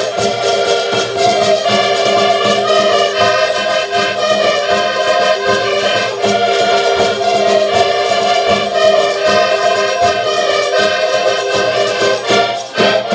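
Portuguese folk ensemble of several accordions with a bass drum playing an instrumental tune to a steady beat, ending on a final chord at the very end.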